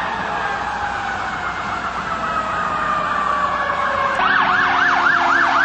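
Emergency vehicle sirens: one wailing tone slowly falls in pitch, and about four seconds in a second siren starts a fast yelp, rising and falling about three times a second, over a steady background rush.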